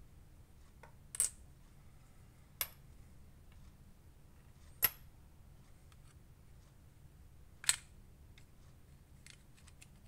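Sharp clicks of a small metal slide-button part and a precision screwdriver being handled and set down on a hard tabletop while an OTF knife's handle is taken apart: four separate clicks a second or two apart, then a few faint ticks near the end.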